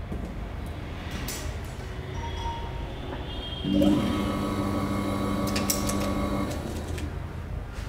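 Electric target carrier motor running, moving a paper air-pistol target along its wire line: a steady hum that starts suddenly about halfway through and stops near the end, with a few sharp clicks.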